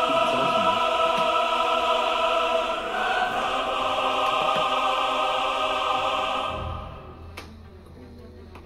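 Background music of held choral chords, shifting to a new chord about three seconds in and fading out a little before the end.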